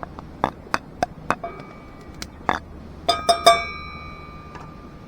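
Metal cookware clinking: a run of sharp knocks, then three quick metal-on-metal clinks a little after three seconds in that ring on for over a second.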